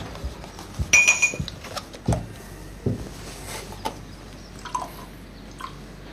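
Dishes and glassware clinking and knocking at a kitchen sink: a loud ringing clink about a second in, then scattered knocks and clatters that thin out after about four seconds.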